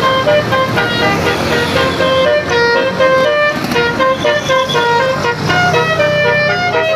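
Basuri multi-tone telolet bus horn playing a fast, stepping tune of short notes, over the low running of the bus's engine.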